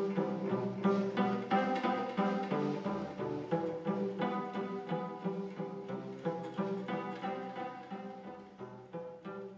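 Background instrumental music with string instruments, plucked notes in a quick steady rhythm, fading out gradually.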